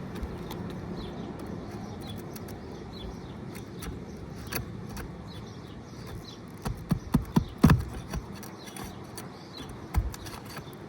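Flat bar prying at a roofing nail under an asphalt shingle: scattered metal clicks and scrapes, with a quick run of loud sharp clicks and knocks about seven seconds in and another knock near the end. A steady low rumble runs underneath.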